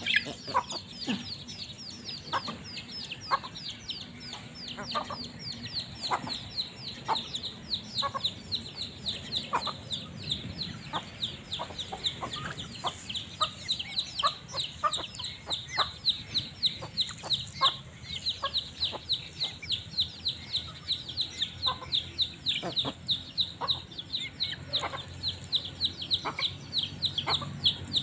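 A flock of young chickens peeping without a break in short, high, falling notes, several a second, with scattered short clucks among them.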